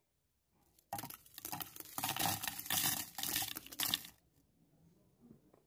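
Dried red chillies tipped into the clear plastic bowl of a hand chopper, rattling and crackling against the plastic and the blades for about three seconds, then a few faint rustles.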